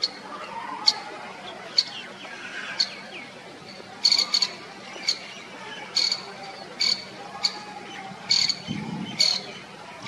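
Bird calling with short, sharp chip notes, roughly one a second and sometimes in quick doubles, over fainter background bird chatter.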